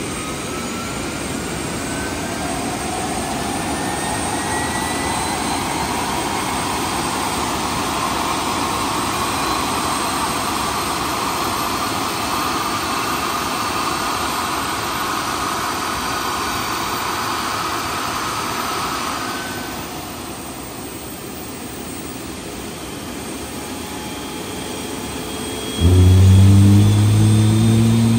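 Jet airliner engine being started with air from a ground air cart: a rising whine as the engine spools up over a steady jet rush, which eases about twenty seconds in. Near the end another engine close by suddenly revs up, loud and low-pitched, its pitch climbing.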